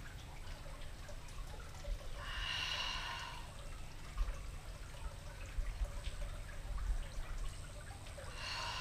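A woman's deep breathing: two audible rushes of breath, each about a second long and some six seconds apart, over a steady low rumble.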